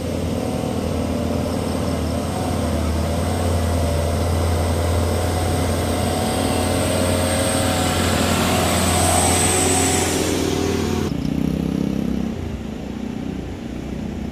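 Mitsubishi Canter truck's diesel engine pulling hard up a dirt slope under load, growing louder as it passes close. About eleven seconds in the sound cuts off suddenly to a quieter, more distant truck engine.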